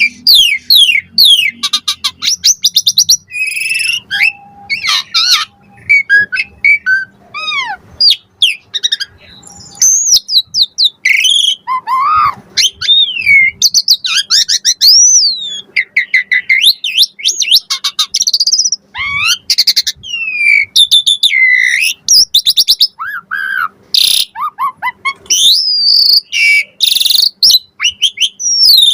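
Asian pied starling (jalak suren) singing a loud, fast, varied song of whistles, chirps, rising and falling glides and rapid clicking trills, packed with 'isian' fills (phrases copied from other birds).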